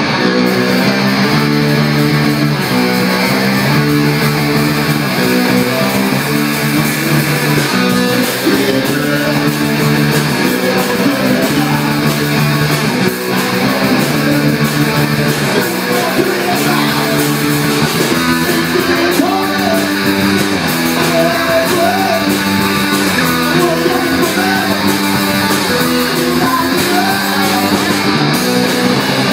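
Live rock band playing loud: electric guitar chords with drums, the chords changing about every second in a repeating riff.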